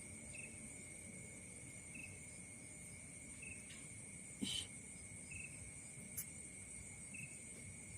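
Night insects: a steady, high-pitched cricket trill with a short chirp repeating about every second and a half. A brief knock about halfway through and a faint click a little later.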